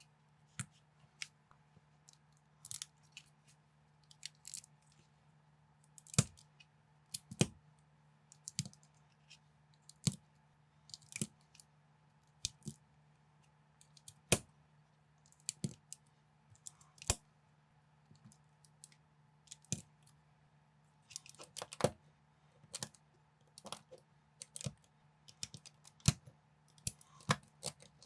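Plastic LEGO-style bricks being handled and snapped together: irregular sharp clicks and small rattles, coming faster near the end, over a faint steady low hum.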